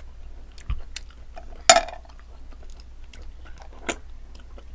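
Eating green mussels by hand: soft chewing and sucking at the shell, with scattered small clicks of shell. There is a low bump just under a second in and a louder click or smack about two seconds in.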